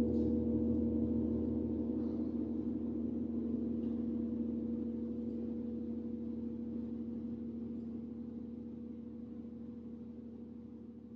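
Large gong ringing on after a stroke: a dense hum of several low, steady tones that slowly fades away.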